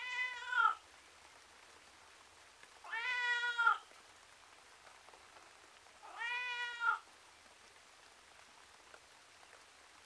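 A tom cat meowing plaintively, three drawn-out meows about three seconds apart, each lasting under a second.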